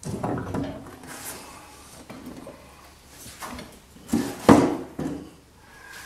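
A car door's outer skin panel being lifted off the door frame: scraping and clattering handling noises, with a sharp knock about four and a half seconds in as the panel comes free.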